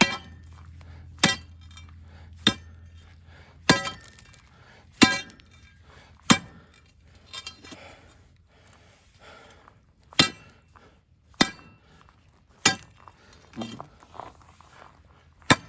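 Steel tool striking solid rock at the bottom of a post hole: sharp ringing metal clinks, about one every second and a quarter, as the rock is chipped away. A low steady hum stops about four seconds in.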